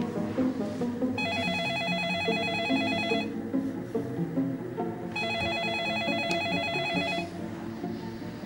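A telephone ringing twice, each ring a warbling electronic trill about two seconds long with a two-second pause between, over background music.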